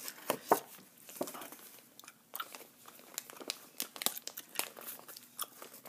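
Close-miked crinkling and tapping of paper cards and a foil sticker pouch being handled: irregular crisp crackles, the sharpest about half a second in.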